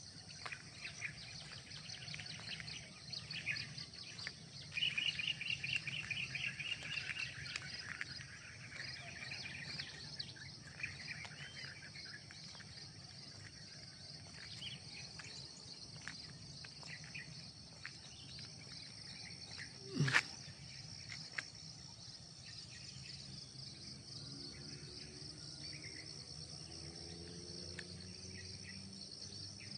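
Outdoor ambience of insects chirring steadily at a high pitch, with birds calling; the loudest calls are a rapid repeated chirping from about five to eight seconds in. A single sharp knock about twenty seconds in, and a faint low drone rising in pitch near the end.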